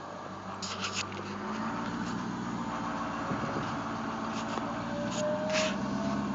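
2011 Ford 6.7L Power Stroke V8 turbo-diesel running, with a thin whine that comes in about two and a half seconds in and slowly rises in pitch. The whine is the unexplained noise under investigation, which seems to come from somewhere underneath the truck.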